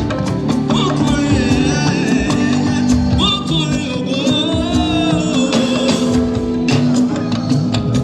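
Music with singing over a steady beat, with plucked guitar and percussion.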